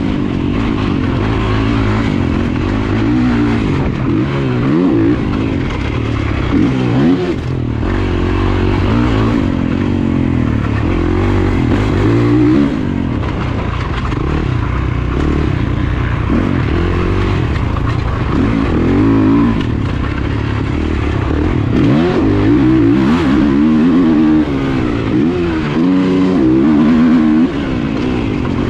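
Motocross race bike's engine revving hard and backing off over and over as it is ridden, its pitch rising and falling every second or few.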